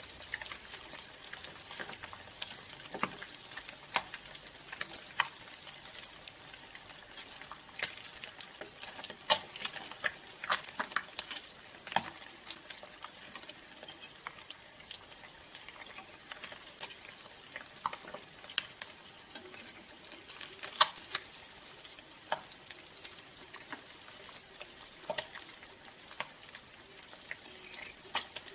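Fish deep-frying in hot oil in a wok: a steady sizzle with frequent sharp crackling pops scattered through it.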